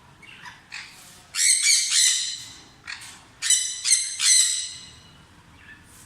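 Sun conure squawking: loud, harsh calls in two groups, about a second and a half in and again from about three and a half seconds, with softer chirps around them.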